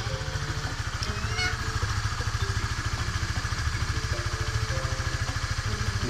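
Honda RS150's single-cylinder four-stroke engine idling with a steady, even beat.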